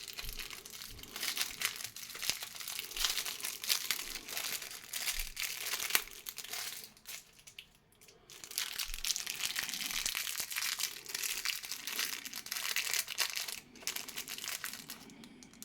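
Plastic packaging crinkling and crackling as a die-cast model airliner is unwrapped from it by hand, with a short lull about halfway through.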